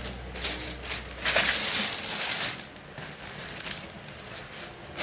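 Plastic grocery bags rustling and crinkling in irregular bursts as produce is handled, loudest about a second and a half in.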